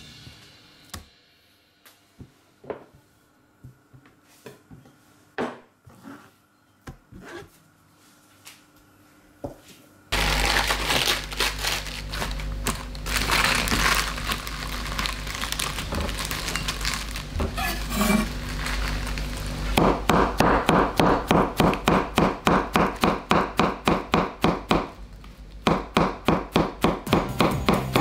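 Lettuce leaves torn and crumpled by hand, then a knife shredding lettuce on a wooden cutting board in quick, even chops, about two to three a second, with a short pause near the end. Before that comes a quiet stretch with a few faint scattered clicks.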